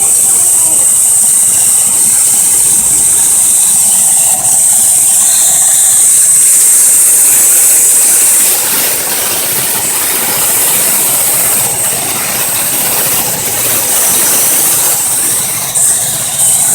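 A 2004 Jeep Liberty's 3.7-litre V6 idling, with a steady high-pitched hiss over the engine noise. The owner complains of a rough idle and suspects a vacuum leak.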